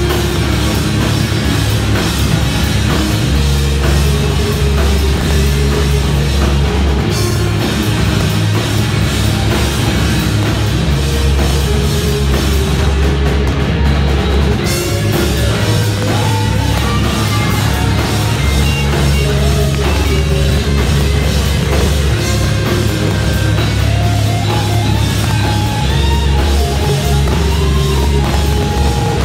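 Live rock band playing loud and continuously: electric guitars, bass and drum kit.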